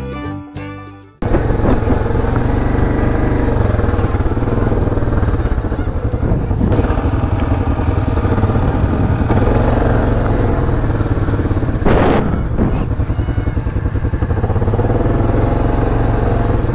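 Fiddle music cuts off about a second in, and then an ATV engine runs steadily under way on a dirt trail. A brief knock comes about twelve seconds in.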